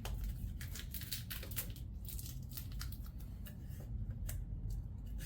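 Duct tape being torn and handled by hand: a run of short, crackling rips and rustles.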